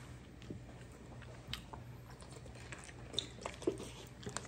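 Faint eating sounds: chewing and scattered small clicks of plastic forks against bowls, with a few louder clicks near the end.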